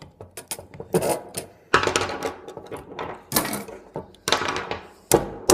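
Metal clinking and knocking as pieces of a microwave oven transformer are beaten loose: a run of light clicks with about five heavier knocks, each ringing briefly.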